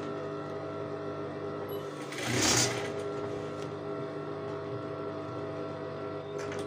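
Industrial sewing machine running, its motor giving a steady hum while a trouser seam is stitched, with a loud rustle of cotton fabric being handled about two and a half seconds in.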